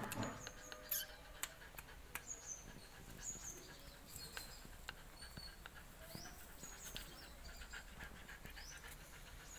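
Beagle puppy panting quietly, with scattered faint clicks and brief high chirps in the background.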